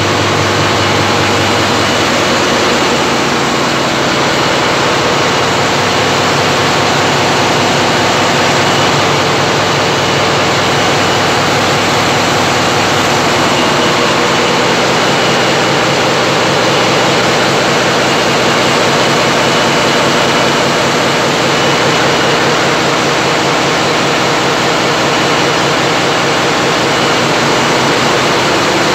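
Heavy engine machinery running steadily: a loud, even drone of many steady tones over a rushing noise. A low hum drops away about two seconds in.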